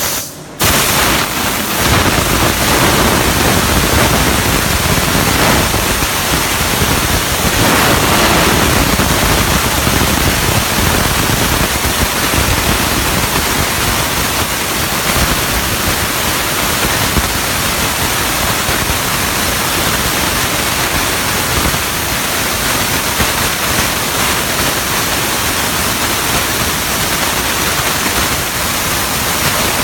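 CNC plasma cutter torch cutting metal: a loud, steady hiss of the plasma arc and its air stream. There is a short break just after the start.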